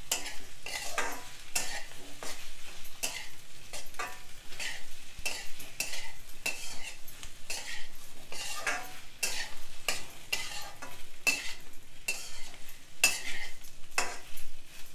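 Flat metal spatula scraping and turning sliced boiled taro root in an iron kadai, a steady run of scrapes about two a second, over the sizzle of the pieces frying in oil.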